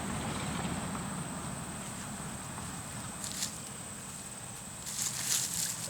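A steady high-pitched insect drone over a low background hum. Hands scrabble and scrape through soil and stones briefly about three seconds in, and again near the end.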